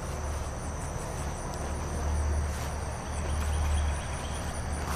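Insects chirping in a steady high trill with fast, even pulses, over a low, uneven rumble.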